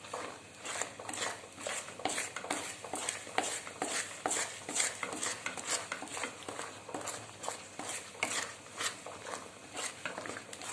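A spoon scraping and clinking against a kadai as thick wheat halwa is stirred and scooped, in quick repeated short strokes.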